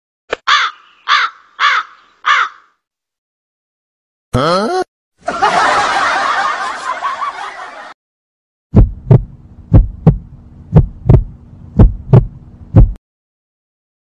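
A run of stock sound effects. A crow caws four times. A brief rising sound is followed by about three seconds of noisy sound that fades out. Then a heartbeat sound effect plays, about five double thumps roughly a second apart.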